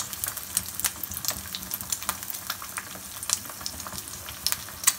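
An egg frying in a little oil in a non-stick frying pan, sizzling steadily with frequent small crackles and pops as its second side cooks.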